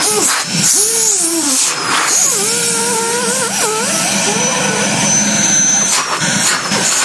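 MVAC M20 compact 12-volt central vacuum running, a loud steady rush of air with a thin high motor whine. Pitched tones in the airflow waver up and down during the first few seconds.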